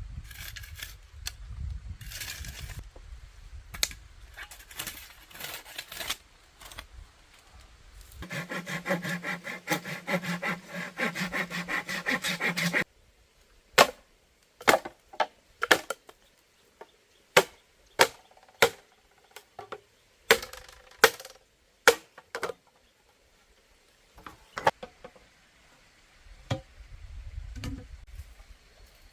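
Bamboo being worked with hand tools: a few seconds of rhythmic sawing, then a series of sharp wooden knocks spaced about a second apart.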